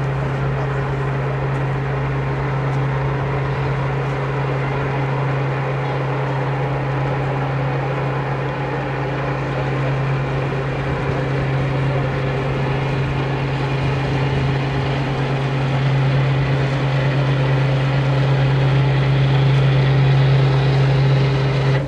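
Engine of the lake steamer Tern running with a steady low hum, getting louder over the last few seconds as the vessel approaches.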